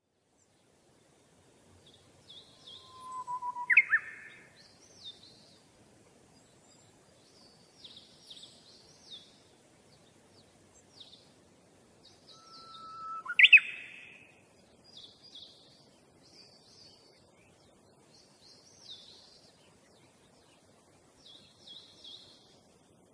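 Small birds chirping in short, repeated high phrases. Twice, once about four seconds in and again about halfway through, a louder call sounds: a brief whistle followed by a sharp note that rises and falls.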